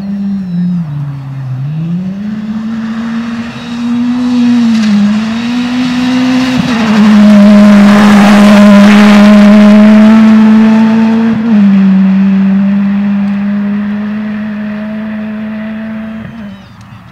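Ford Fiesta rally car passing at speed on a gravel stage. Its engine revs rise and fall as it approaches, then run loud and steady as it goes by close about eight seconds in, with tyre and gravel noise. The engine note steps down and fades as it drives away.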